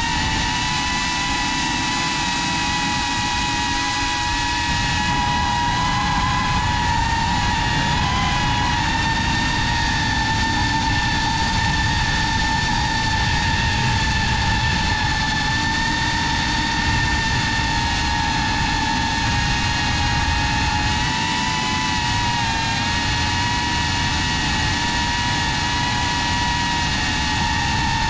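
FPV quadcopter's motors and propellers whining steadily at a high pitch, the pitch wavering slightly now and then, over a low rushing rumble.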